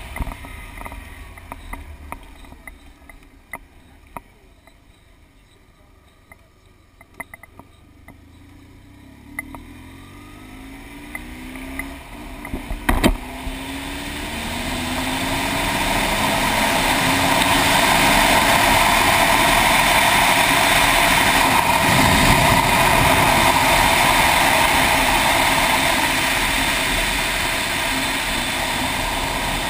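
Motorcycle riding: the engine note rises again and again as it accelerates through the gears, with scattered ticks and one sharp knock about 13 seconds in. After that, loud wind and road rush at speed drowns out most of the engine.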